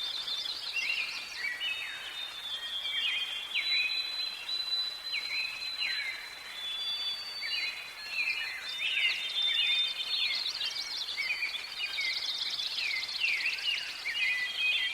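Forest bird chorus: several birds calling over one another in quick chirps and short downward-sweeping notes, with a thin steady high tone running through.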